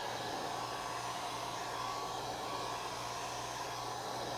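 Electric heat gun running steadily on a low setting, a rush of blowing air with a faint steady whine, warming a rubber deck pad to activate its adhesive.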